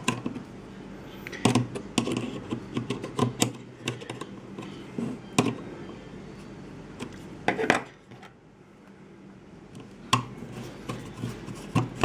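Irregular metal clicks and clinks as small pliers grip and turn the force-adjustment on a pair of ratcheting crimping pliers, with knocks of the tools being handled against each other, setting the ratchet back to minimum force.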